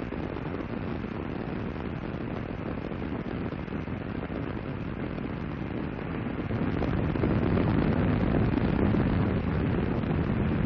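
A steady low rumble from Space Shuttle Columbia's two solid rocket boosters and three main engines in powered ascent, growing louder about six seconds in.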